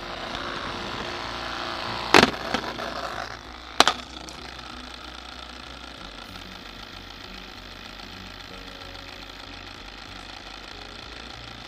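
Small DC toy motors spinning plastic propellers, a steady whir that is louder for the first few seconds and then settles lower. Two sharp knocks, about two and four seconds in, are the loudest sounds.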